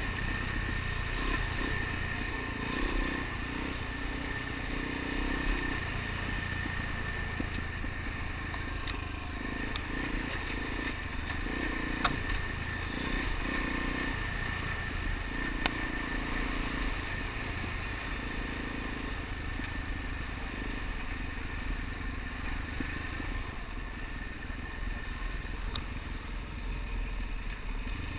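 Suzuki DR-Z dual-sport motorcycle's single-cylinder engine running on the move over a gravel road, with wind on the microphone. A couple of sharp ticks come through in the middle.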